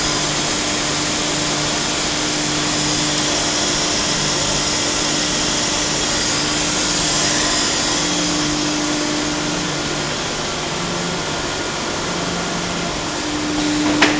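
Battenfeld pipe extrusion line running: a steady mechanical whir and hiss from its drives and machinery, under a steady low hum. One brief sharp click comes shortly before the end.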